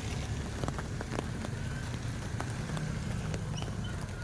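Bus engine idling, a steady low rumble, under a hiss of background noise with scattered small clicks.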